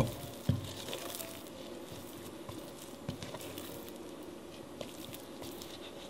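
Sticky bread dough being worked by hand in a glass bowl as butter is mixed in. Two sharp knocks of the spatula against the glass in the first half-second, then soft squishing, scraping and small clicks as the dough is lifted and stretched.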